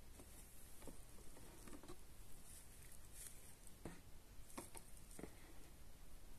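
Faint handling noises as gloved hands lift a Philips Lumea IPL handset out of its moulded packaging insert: a few light, irregularly spaced knocks and rustles.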